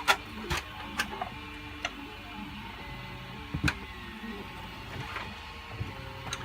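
A 3D printer's stepper motors whirring in the background in shifting tones, with a scatter of light clicks and knocks as printed PLA parts are handled, the loudest right at the start and about a third of the way in.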